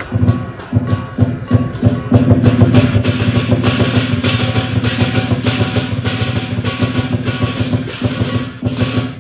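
Lion dance percussion: a big drum beaten in a fast steady rhythm with cymbals crashing over it, growing denser and louder about two seconds in.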